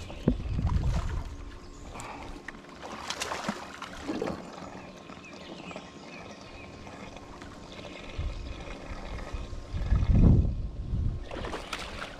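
Water splashing as a hooked fish thrashes at the surface beside a kayak, with a few sharp splashes and knocks, and gusts of wind rumbling on the microphone.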